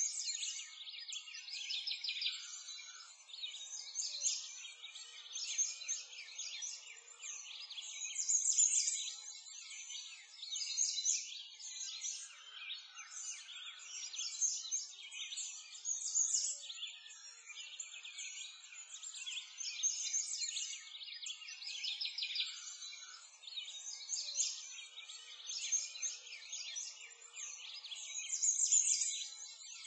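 A continuous chorus of small songbirds chirping and trilling, many overlapping calls with no pause, high-pitched and without any low sound beneath.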